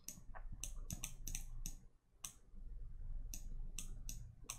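About a dozen light, sharp clicks from a computer input device as strokes are drawn on screen, with a short pause about two seconds in.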